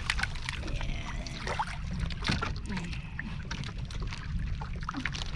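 Water sloshing around a small fishing boat, with a steady low wind rumble on the microphone and scattered sharp clicks and knocks of handling.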